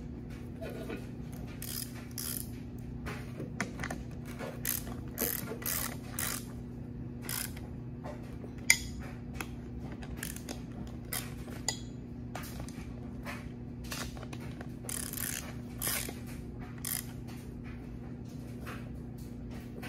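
Hand ratchet wrench clicking in short, uneven runs as bolts are tightened on the top plate of an air suspension bag, with one sharper metal click about nine seconds in. A steady low hum runs underneath.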